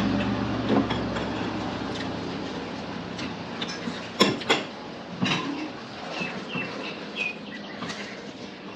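A steady low engine hum fading away over the first few seconds, then a couple of sharp clicks about four seconds in and a few short bird chirps.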